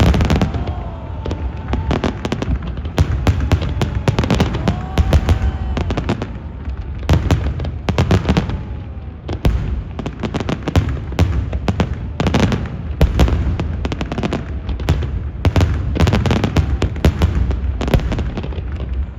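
Fireworks show: a dense, continuous barrage of aerial shells bursting, many bangs overlapping with deep booms and crackle.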